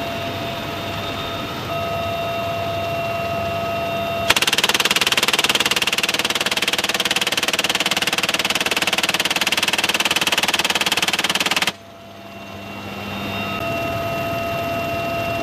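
UH-1Y Huey helicopter running steadily in flight, heard from the open cabin door with a steady whine. About four seconds in, a door-mounted rotary minigun fires one continuous burst of about seven seconds, a rapid buzzing stream of shots far louder than the helicopter, which cuts off suddenly.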